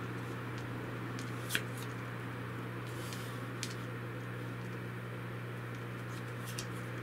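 Steady low electrical hum with a light hiss, broken by three short faint clicks spread across the few seconds.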